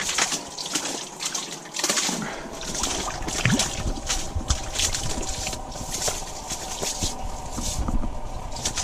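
Water splashing and sloshing in a hole in the ice as a freshly caught burbot is handled and lifted out by hand, in a run of irregular splashes and drips.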